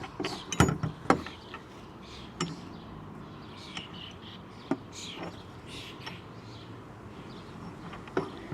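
A few sharp clicks and knocks of metal hardware being handled and fitted against a roof rack, mostly in the first second or so, with an odd click later. Faint bird chirps sound in the background.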